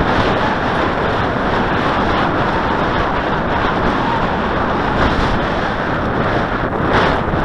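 Strong wind buffeting the microphone: a loud, steady rushing with gusty low rumble.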